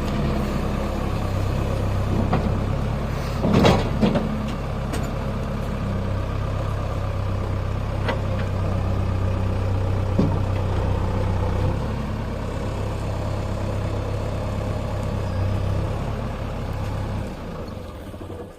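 JCB backhoe loader's diesel engine running steadily, with a loud knock about three and a half seconds in and a few lighter clicks; the engine sound drops away near the end.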